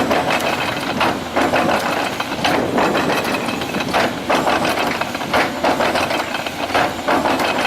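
Caterpillar 336D long-reach excavator working, its diesel engine running under repeated knocks and clatter, about two a second.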